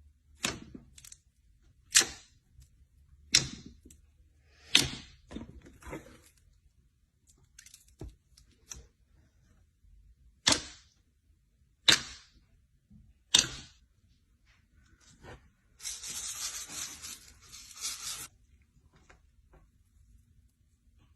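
Slime being squeezed and pulled, giving sharp popping snaps at a steady pace of about one every second and a half, with smaller clicks between them and a couple of seconds of continuous crackling near the end.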